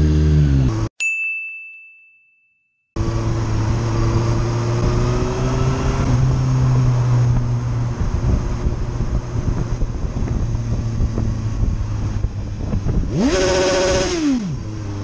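A motorcycle engine revs, then about a second in it cuts off abruptly for a single bell-like ding that rings out for about two seconds. The motorcycle's engine then runs steadily while riding, with one quick rev up and back down near the end.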